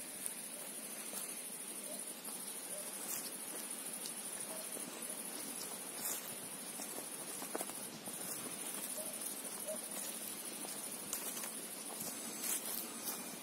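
Insects chirring in a steady, high-pitched chorus, with a few faint footstep crunches on dry ground and leaves scattered through it.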